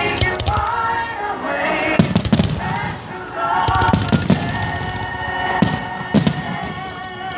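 Fireworks shells bursting in a string of sharp bangs, the loudest about two, four and six seconds in, while music plays throughout.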